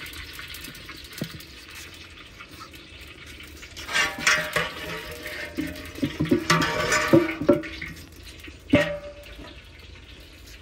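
Long metal ladle stirring and scraping inside a large metal cooking pot of liquid, with clanks of metal on metal, loudest from about four to seven and a half seconds. A single sharp ringing knock comes near the end.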